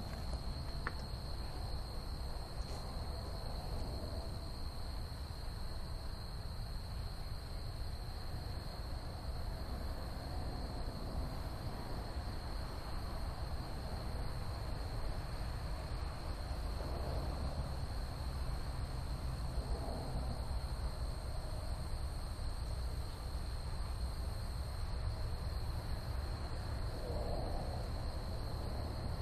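Outdoor field ambience: a steady high-pitched insect trill over a low, steady rumble, with a few faint hooting calls in the second half.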